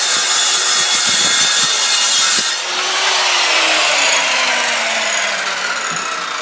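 Power saw cutting wood; the cut stops abruptly a little over two seconds in, and the motor winds down afterwards with a slowly falling whine.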